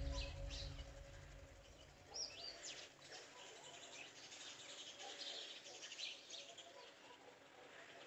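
Faint outdoor birdsong: scattered short chirps and whistles from small birds, the clearest about two to three seconds in, after a ringing music tone fades out in the first second.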